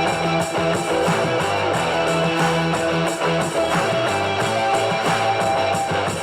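Background music: a guitar-driven track with strummed guitar.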